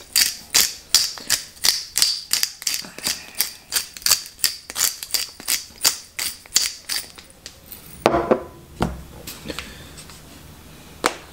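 Hand pepper mill grinding black pepper: a steady run of dry clicks, about three a second, for some seven seconds, then it stops. A knock follows about eight seconds in.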